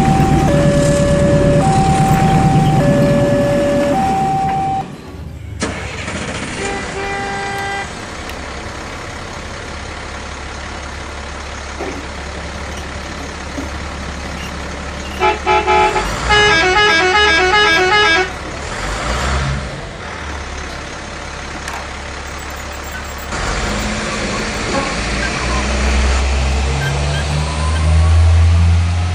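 Electronic toy train sounds: a two-note electronic chime alternating over a motor rumble as the toy locomotive passes, then a steady low hum. About halfway through there is a short electronic beeping tune, and near the end a toy motor whirs louder, with rising tones.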